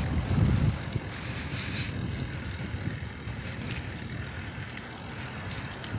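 Wind and road noise from riding a bicycle: a rumble of wind on the microphone for the first second, then a steady rush. Throughout, a short high chirp repeats evenly about two to three times a second.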